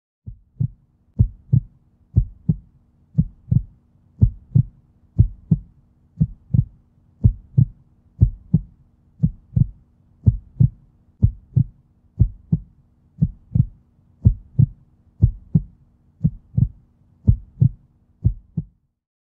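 A slow, steady heartbeat: paired lub-dub thumps about once a second over a faint low hum, stopping near the end.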